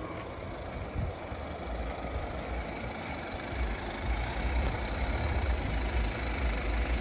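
Jeep Wrangler Rubicon's engine running at low revs as it crawls over rock in low-range four-wheel drive, a low rumble that grows louder as it comes closer.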